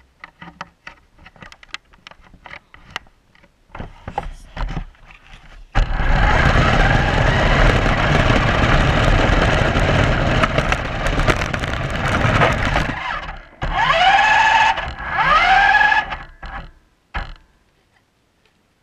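RC car driving: scattered clicks and knocks, then about seven seconds of loud motor whine over rattling wheel and ground noise, then two short bursts in which the whine rises in pitch as the car accelerates.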